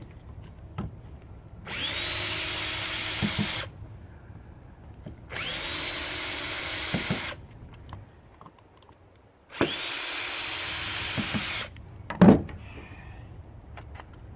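A power drill set to slow speed runs three times for about two seconds each, spinning up to a steady whine each time as it backs bolts out of an electric scooter's motor. Short knocks and clicks of parts being handled come between the runs.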